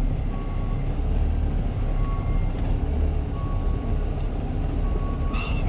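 Concrete mixer truck's diesel engine running with a steady low rumble, with a faint electronic beep repeating about every second and a half.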